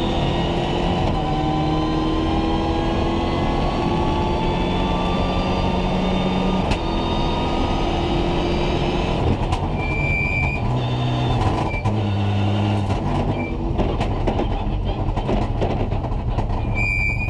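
Rally car engine heard from inside the cockpit, pulling hard with its pitch rising for most of the first nine seconds. The note then drops to lower, uneven steps as the car comes off the throttle. In the second half there are a few short high electronic beeps and a run of sharp crackles and clicks.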